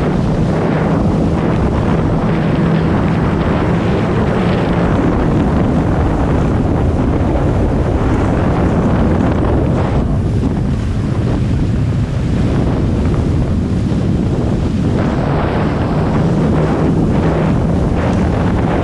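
Jet ski engine running on the water, heard under heavy wind buffeting the microphone and the rush of water.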